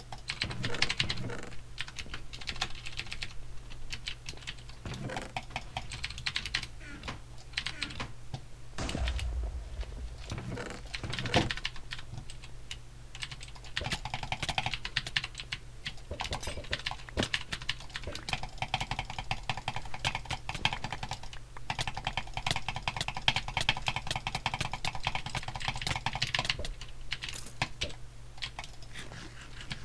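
Rapid, irregular clicking over a steady low hum.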